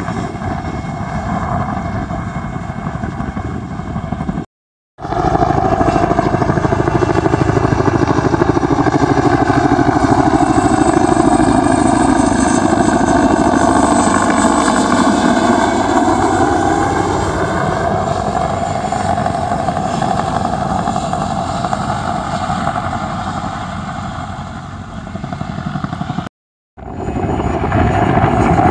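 Mi-2 helicopter's twin turboshaft engines and main rotor in flight as it passes overhead. It is loudest in the first half and fades as it moves away. The audio cuts out briefly twice, about four and a half seconds in and near the end.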